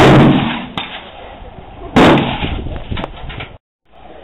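Two loud gunshots about two seconds apart, each followed by a long echoing tail, with fainter cracks from other guns between them.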